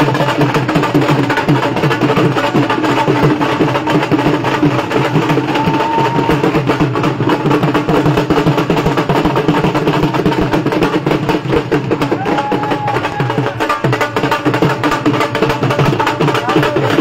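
Loud festive music with rapid, steady drumming, over the voices of a dancing crowd.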